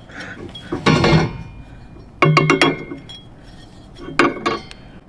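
Metal running-board mounting hardware and tools clinking and clanking together in three short clusters: about a second in, a little past two seconds, and around four seconds.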